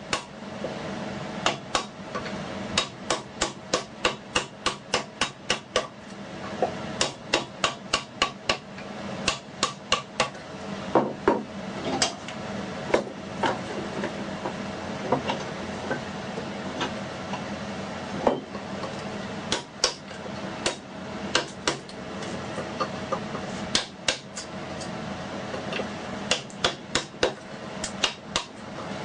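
Wooden mallet striking a woodworking chisel: runs of sharp taps about two to three a second with brief pauses between runs, as the waste wood is chopped out by hand.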